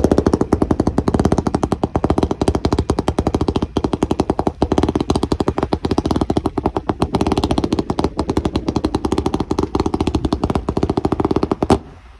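A consumer firework cake firing a rapid volley of comet shots in a fan, too many a second to count, like machine-gun fire. The volley stops suddenly near the end with one last loud shot.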